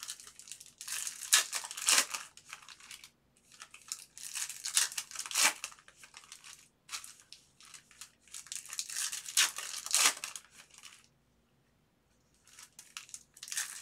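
Foil trading-card pack wrappers being torn open and crinkled by hand, in a string of short, irregular bursts, with a pause of about a second and a half near the end.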